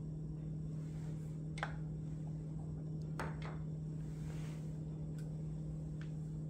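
A few light clicks and taps of sunglasses frames being lifted off and set down on a glass-topped kitchen scale and a countertop, with a soft slide in between, over a steady low hum.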